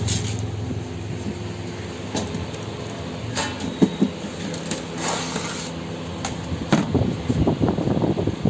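Small tools and parts clicking and knocking during hands-on repair work, over a steady low hum; from about seven seconds in, a fast, busy rattling of handling takes over.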